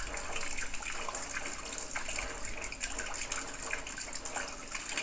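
Rainwater running off a roof and splashing into a plastic bucket: a steady, busy run of small splashes and trickling.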